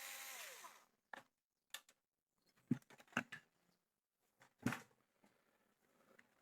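Cordless electric screwdriver driving out a screw, its motor whine dropping in pitch and stopping about half a second in. A few light clicks and knocks follow.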